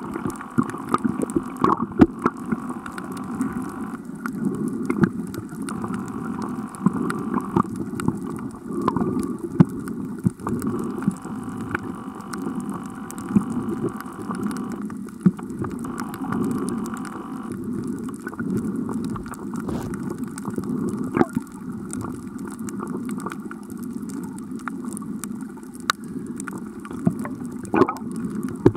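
Underwater sound through a camera housing: water swirling and gurgling, with scattered sharp clicks. A steady hum comes in twice, for the first few seconds and again for several seconds in the middle.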